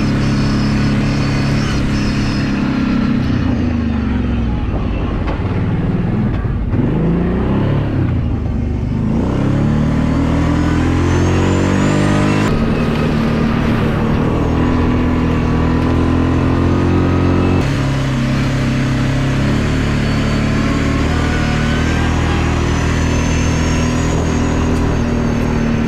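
ATV engine running under way, its pitch dropping and then climbing again about a third of the way in as the throttle is eased off and reopened, with a couple of sudden shifts in engine note later on.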